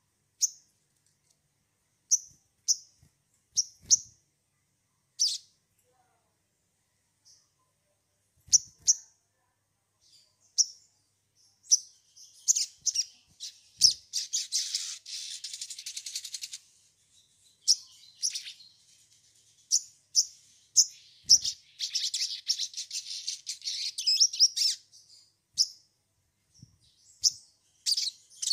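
A sogon (spiderhunter) calling: sharp, high single chirps a second or so apart, which break about halfway through into long, rapid chattering runs, and again near the end. A few faint low knocks sound under the early chirps.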